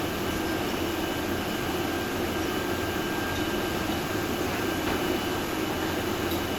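Steady drone of jam-factory production machinery running: a constant low hum with faint, steady high-pitched tones over it.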